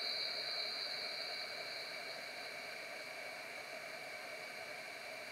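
Hot air rework station blowing at about 50% airflow and 450 °C to desolder a small component from a logic board: a steady hiss with a high whine, slowly getting a little quieter.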